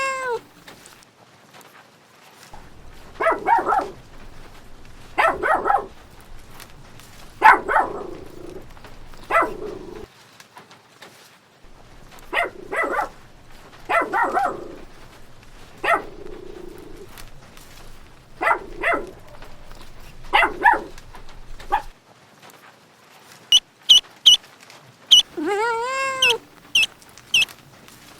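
A dog barking: about a dozen short barks, singly and in pairs, with pauses between them. Near the end come rapid high-pitched repeated calls.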